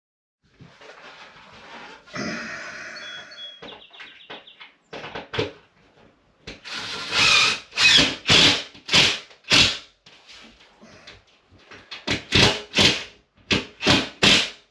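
A short burst of noise with a brief high whine, then two runs of loud knocks at about two a second.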